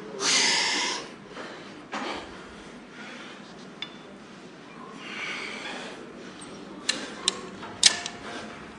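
Forceful breathing of a lifter straining through a heavy set: a loud hissing exhale just after the start, a shorter one about two seconds in and a softer one past the middle. A few sharp clicks follow near the end.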